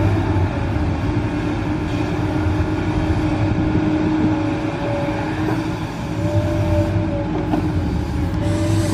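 Komatsu PC200 hydraulic excavator working: its diesel engine runs under load with a steady hydraulic whine as it digs and lifts a bucket of soil. The engine's low drone grows louder about six seconds in.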